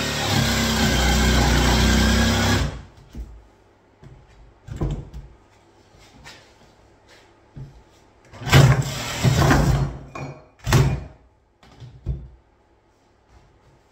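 Makita cordless jigsaw cutting through a laminate kitchen worktop, then stopping abruptly about two and a half seconds in. This is followed by scattered knocks and clunks as the saw is handled and set against the worktop edge.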